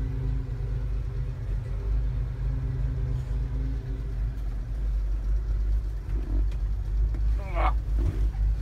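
Volkswagen LT 28 van's engine idling, a steady low rumble heard from inside the cab.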